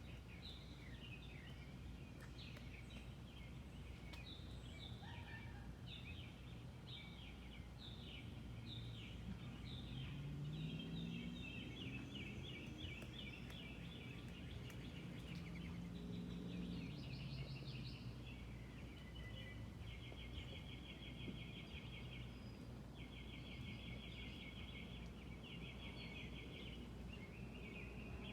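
Birds calling: a run of short high chirps, then fast rattling trills repeated again and again through the second half. A low hum rises and falls in pitch in the middle under the calls.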